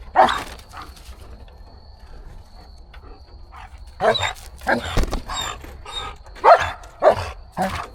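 A dog barking in short, separate barks: one just after the start, then a quick run of several barks in the second half.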